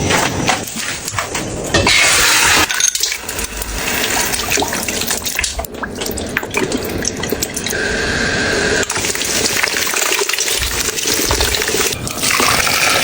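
Water running and splashing in a kitchen, the flow changing in strength as it goes.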